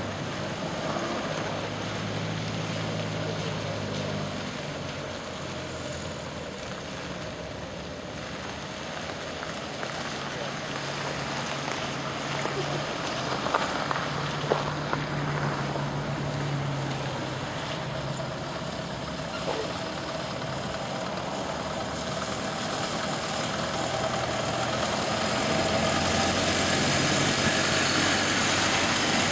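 Small vintage car engine running at low speed as the car drives slowly, getting louder over the last few seconds as it comes closer.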